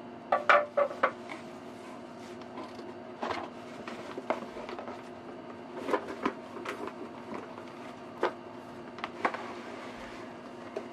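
Handling and unpacking a plastic cosmetic organizer from its cardboard box: scattered rustles, clicks and light knocks of cardboard, plastic and paper, loudest about half a second in, over a steady low hum.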